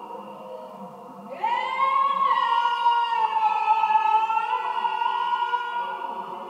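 A singer's voice swoops up into a long held high note, over sustained droning tones that run underneath.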